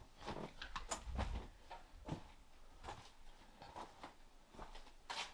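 Footsteps crunching and scuffing over broken plaster and debris on a derelict floor: scattered, irregular taps and crunches.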